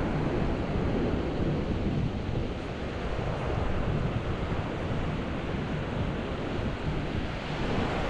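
Ocean waves washing onto the beach as a steady rush of surf, with wind buffeting the microphone.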